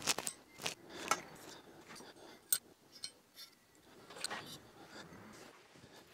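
Light metallic clicks and clinks as poppet valves are moved and handled in a bare aluminium Honda F20C cylinder head, a handful at irregular intervals.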